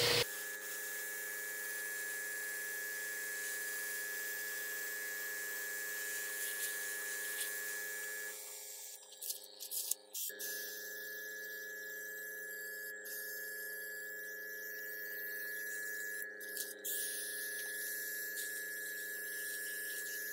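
Airbrush and its compressor running: a steady electric hum with a high hiss of air and paint spraying from the airbrush. The sound dips briefly about eight seconds in and comes back with a click about two seconds later.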